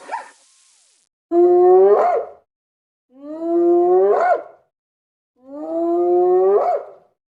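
An animal calling three times, each call a long steady note that bends upward at the end, with short pauses between calls.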